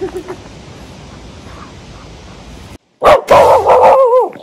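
A dog barks loudly in a quick run of barks starting about three seconds in, the last drawn out into a falling yelp.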